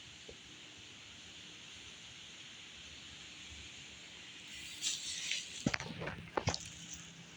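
Steady faint outdoor hiss, then about five seconds in a short rustle followed by several sharp clicks or knocks.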